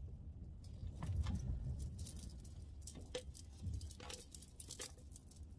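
Beaded and crystal dangles on a silicone mermaid shell top clicking and jangling against each other as the top and its straps are handled, with a low rustle of handling.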